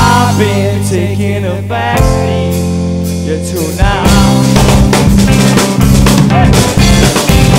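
Rock band playing live: electric guitars and drum kit with a male lead singer. About two seconds in, the band holds a long chord with the drums dropping back, and just before the four-second mark the full band comes back in with the drums.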